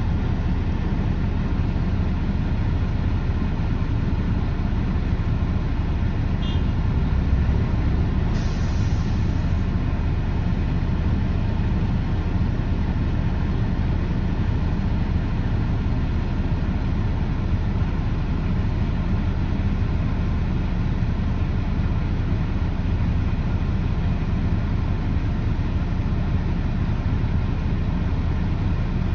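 Heavy diesel engine of construction equipment running steadily with a low drone. A short burst of air hiss about eight seconds in.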